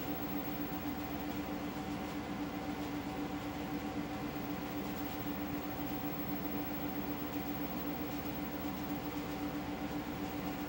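Steady electrical hum with a constant low tone and an even hiss, with no voices or music: the noise of old videotape played back on a television.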